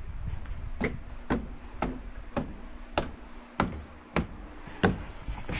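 Footsteps knocking on a wooden walkway at an even walking pace, about two steps a second. Near the end a brief rush of hiss starts.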